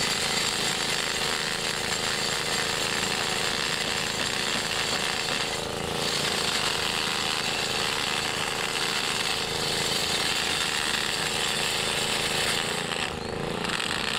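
Continuous loud machine noise with a rapid rattle, like a power tool running, dipping briefly about six seconds in and again near the end.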